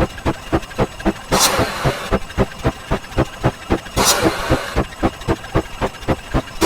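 A fast run of short, repeated sound-effect hits, about six or seven a second, marking each step of a count. A louder, longer noisy effect comes in twice, about a second and a half in and again about four seconds in, where a higher digit rolls over.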